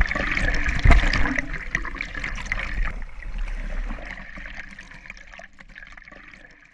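Water sloshing and gurgling around an action camera held at the surface and dipped under water, with a sharp knock about a second in; the sound fades away toward the end.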